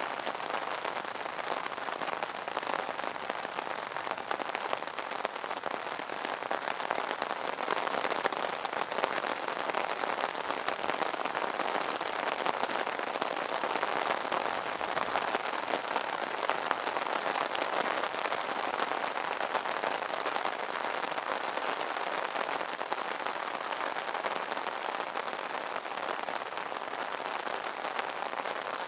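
Rain pattering steadily on an umbrella's fabric canopy: a dense, even spatter of drops with fine individual taps.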